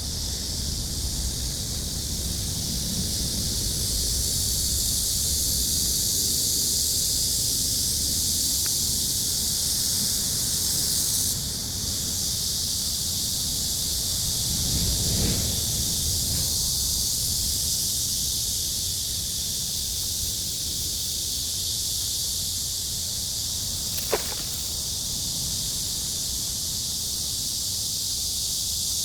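Steady, high-pitched cicada chorus of a summer day, unbroken throughout, over a low outdoor rumble. A short sharp sound falls quickly in pitch near the end.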